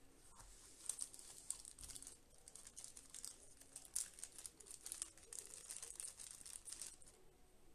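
Small clear plastic bags holding action-camera mounts crinkling as they are handled and opened, a quick run of soft crackles that stops near the end.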